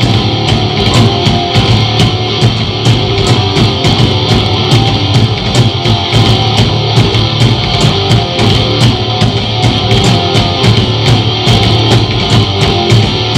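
Heavy metal band playing live without vocals: electric guitars and bass over a fast, steady drumbeat, loud and continuous.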